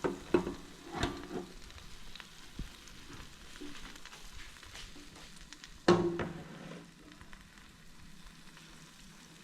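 Freshly air-fried tandoori chicken sizzling and crackling faintly in the air fryer basket. Several light knocks come in the first second and a half, and one sharp, louder knock about six seconds in rings briefly.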